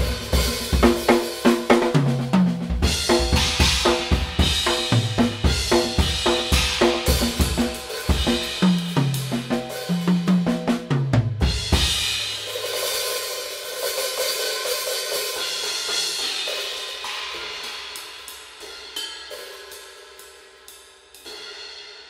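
Drum kit played in a steady groove with bass drum, snare and Aisen Dirt Series B20 bronze cymbals. About twelve seconds in the drums drop out and only the cymbals are struck and left to wash and ring. They fade out, with a few last strikes near the end.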